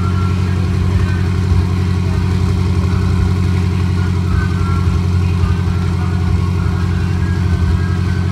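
BMW F10 M5's twin-turbo V8 idling steadily through its quad exhaust tips.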